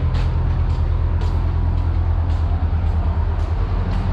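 Steady low drone of the KM Gregorius's running engine machinery, heard on deck, with footsteps on the deck about twice a second.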